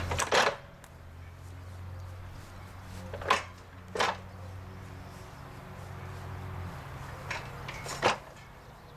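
A few sharp knocks and clunks, about five or six, as a heavy steel mower deck is handled and set in place. A low steady hum runs underneath and stops about two-thirds of the way through.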